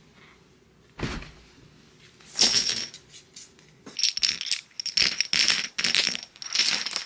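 Metal clinking and rattling from handling a Henry brass-framed .45-70 lever-action rifle: a knock about a second in, then several bursts of metallic clinks with a high ringing.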